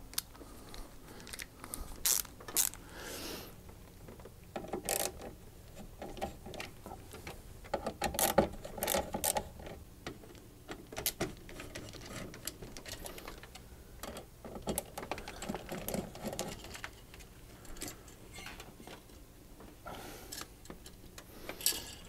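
Irregular small clicks, ticks and metal rattles of a tower CPU cooler being unscrewed and worked loose from a motherboard, in scattered clusters.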